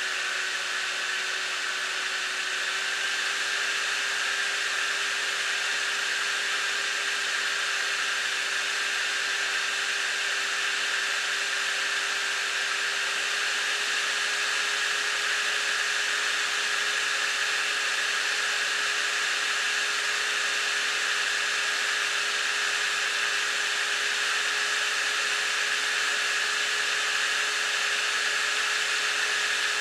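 Stock cooling fan of a Galaxy GeForce GTX 260 (55 nm, 216 SP) graphics card running: a steady rush of air with a faint whine, its pitch rising slightly a couple of seconds in and then holding steady.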